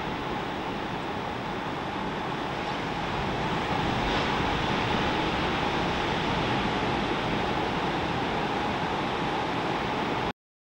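Steady rush of heavy breaking surf and churning whitewater, a little louder from about three and a half seconds in, cutting off suddenly near the end.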